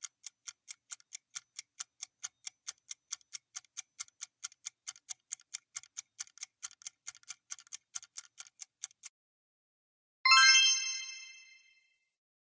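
Quiz countdown timer ticking, about four ticks a second, then stopping. About ten seconds in, a louder bright chime rings and fades, marking the time-up and the reveal of the correct answer.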